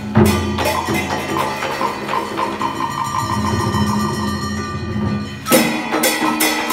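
Traditional Vietnamese water-puppet music: an ensemble with wood block and drum strikes under pitched instrument notes, with a sharp cluster of percussion strikes about five and a half seconds in.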